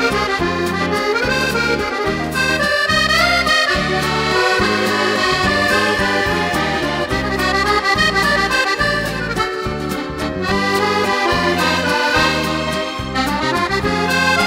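Instrumental background music: a melody over a steady, pulsing bass line.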